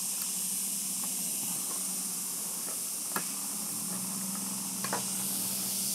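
A steady hiss with a faint low hum under it. A few small clicks, about three seconds in and again near five seconds, come from a small screwdriver and wires being handled at an LED driver's screw terminal.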